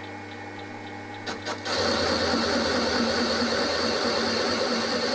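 Milling machine spindle running with a 24mm end mill, then the cutter bites into a drilled hole in the flywheel about a second and a half in. The cut gives a much louder steady grinding noise with a high whine.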